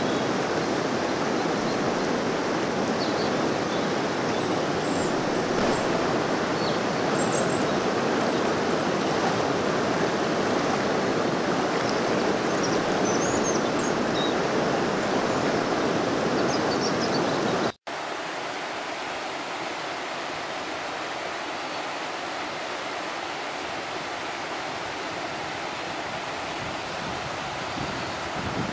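Rushing water of a wild river running over a stony bed and rapids, a steady rush. About eighteen seconds in there is a sharp cut, and the water goes on a little quieter with less low rumble.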